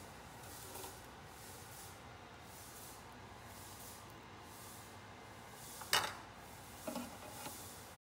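Faint steady hiss of hot oil sizzling in an electric deep fryer. About six seconds in, kitchen tongs give one sharp clink against metal, followed by a few lighter clicks.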